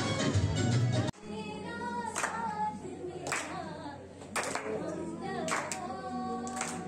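Music for about the first second, then after a sudden cut a voice singing without instruments while people clap along in time, a clap roughly once a second.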